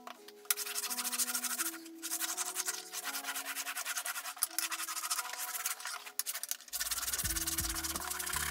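A stick of candle wax rubbed briskly back and forth over a wakeboard, a fast scratchy rubbing with short pauses. It is waxing the board so it slides smoother and faster on cable-park obstacles. Lo-fi hip-hop music plays alongside, with a bass line coming in near the end.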